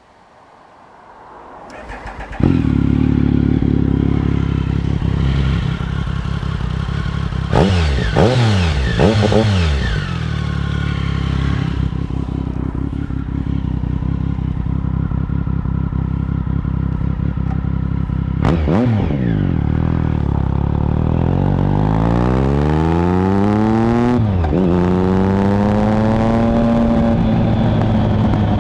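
2013 Triumph Speed Triple 1050's inline three-cylinder engine through a Competition Werks GP slip-on exhaust: started up, catching about two seconds in, then idling. It is blipped three times in quick succession near eight seconds and once more later, then revs climb in one long rise, drop sharply at a gear change and run steady.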